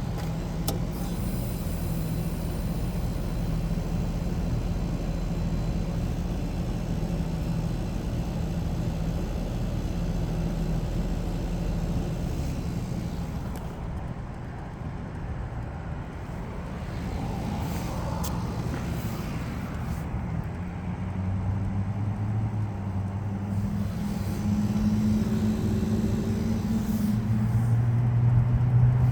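Carrier 38MAQ two-ton mini-split heat pump outdoor unit coming out of a defrost cycle: a steady low machine hum that shifts about twelve seconds in, then a new hum sets in about twenty seconds in and grows louder toward the end as the unit goes back to heating.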